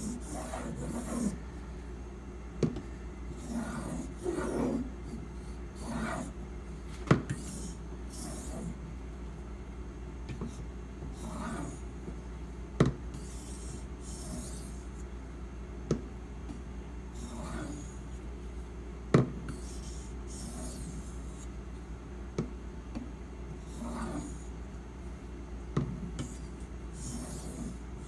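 Steel knife edge scraping back and forth on a whetstone in repeated strokes, light passes to break off a raised burr. A few sharp clicks are heard between the strokes.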